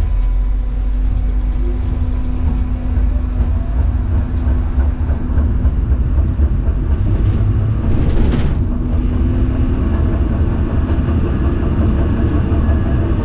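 A1 class tram running along street tracks, heard from inside the cab: a steady low rumble of wheels on rail. A steady hum runs through the first five seconds or so, and a brief hiss comes about eight seconds in.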